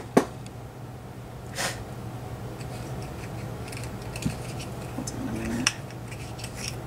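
Plastic glitter containers being handled while fine glitter is poured from one into another. Two sharp clicks at the start, a short rustling hiss about a second and a half in, then light scattered taps.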